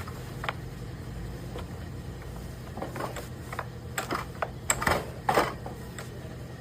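Scattered clicks and knocks from a four-stroke brush cutter's recoil starter being tugged, which is locked and will not pull the engine over, so the engine does not start. The knocks come closer together and louder in the second half.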